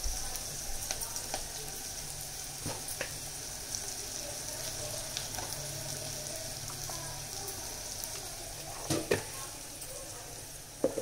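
Sliced onions frying in a pot over a gas flame: a steady, soft sizzle. A few sharp knocks come through it, two close together near the end.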